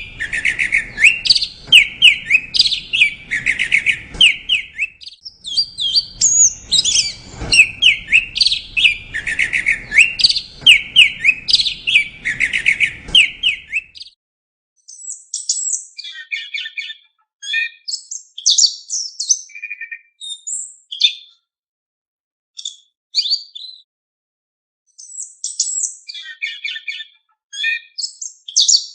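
A songbird singing in quick runs of high, repeated chirps, dense and nearly continuous for about the first half, then breaking into shorter separate calls with silent gaps between them.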